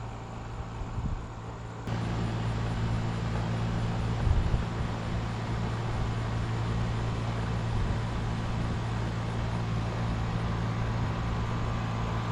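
Steady mechanical hum with a low, even drone, stepping up in level about two seconds in and then holding steady.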